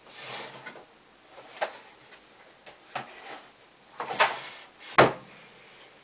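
Rummaging in a wooden cabinet: rustling and a few sharp knocks, the loudest about five seconds in.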